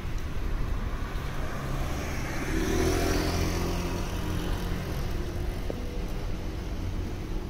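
A road vehicle passes close by, building to its loudest about three seconds in and then fading, over a steady hum of city traffic.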